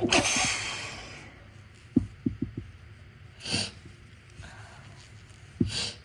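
A sneeze induced by tickling the nostril, ending right at the start, its rush of air trailing off over about a second. A few soft mouth or nose clicks follow, then short sniffs about three and a half seconds in and again near the end.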